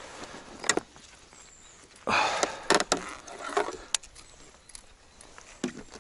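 Handling noise on a float tube: several sharp knocks and clicks of rod and gear against a plastic tackle box, with a short rustling, splashy burst about two seconds in.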